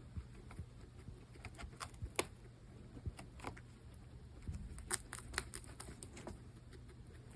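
Small, irregular clicks and taps from pet guinea pigs moving about and handling things in their enclosure, over a faint steady low hum.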